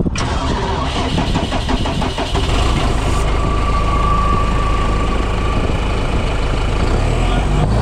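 Engine running close by, with a fast even pulse for the first couple of seconds and a steady tone in the middle, over wind noise.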